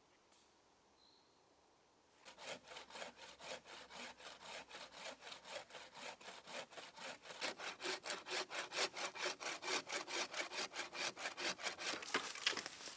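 Improvised bow saw, a steel bow-saw blade tensioned in a bent green-branch frame, cutting through a beech branch with fast, even back-and-forth strokes. The sawing starts about two seconds in.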